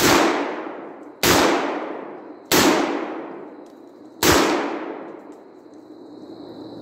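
G-Force GF00 12-gauge tactical shotgun firing slugs four times in quick succession, the shots roughly a second or so apart with a longer gap before the last, each blast followed by a long fading echo.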